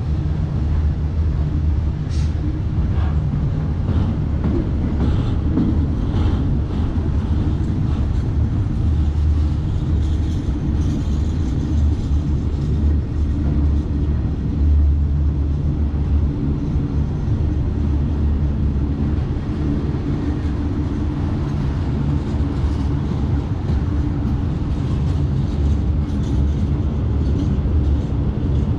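Freight train's container flatcars rolling past on the track: a steady low rumble of steel wheels on rail, with a few clicks in the first six seconds or so.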